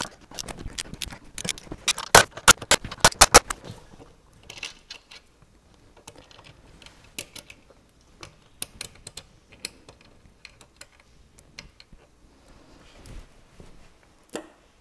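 Ratchet with a universal-joint socket clicking rapidly as the sterndrive's mounting nuts are backed off, for about the first three and a half seconds. Then scattered light metallic clinks as the loosened nuts are handled and taken off.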